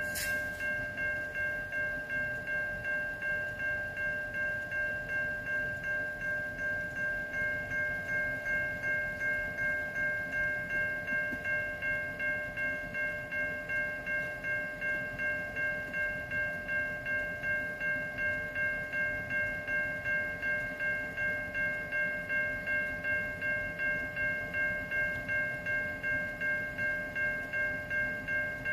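Low-pitched Siemens electronic crossing bell on a railroad crossing signal, ringing steadily in an even rhythm of about two and a half strikes a second while the signals are activated.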